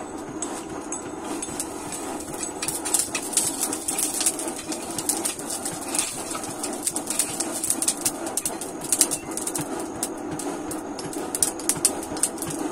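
Many irregular, sharp high clicks and ticks, densest in the middle stretch, over a steady low hum.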